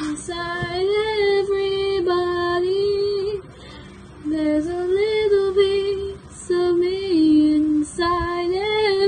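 A young female voice singing solo, holding long notes that glide up and down, with a short break about three and a half seconds in.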